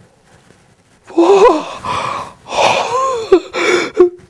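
A man's loud, exaggerated wheezing gasps, a comic build-up to a sneeze, in several breathy vocal swells that bend up and down in pitch, starting about a second in.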